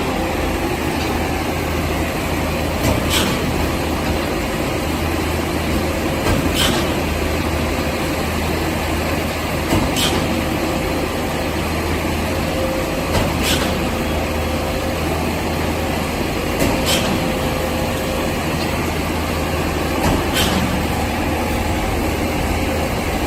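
Concrete mixer pump running steadily with a low engine hum, and a sharp knock about every three and a half seconds as the pump changes over from one stroke to the next.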